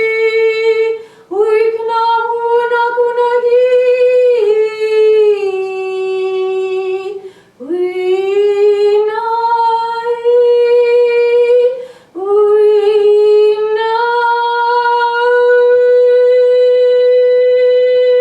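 A woman's solo voice singing long, held vowel tones without accompaniment. The phrases last several seconds, each begins with an upward slide and then holds near one pitch, and short breaks fall about a second, seven and a half seconds and twelve seconds in.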